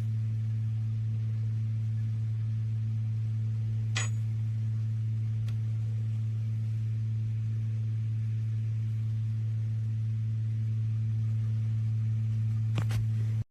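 A steady low electrical hum, with a couple of faint clicks. It cuts off abruptly at the end.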